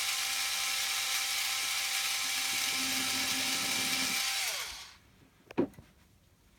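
Cordless drill running steadily with a high whine, then spinning down about four seconds in as it is switched off. A single short knock follows about a second later.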